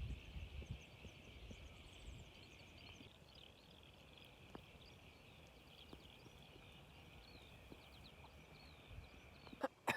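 Faint outdoor chorus of insects: a steady, high, even buzzing, with scattered short bird chirps above it. Near the end there are a couple of sharp clicks.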